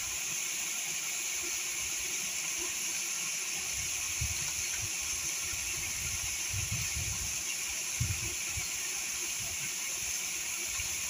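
Waterfall pouring into a plunge pool: a steady rushing of falling water, with a few soft low bumps in the middle.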